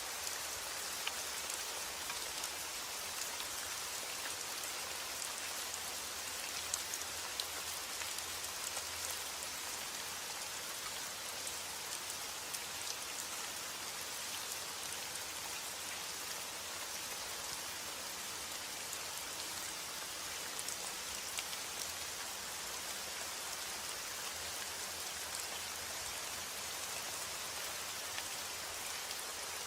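Steady rain falling, a continuous even hiss with scattered individual drops pattering on a surface.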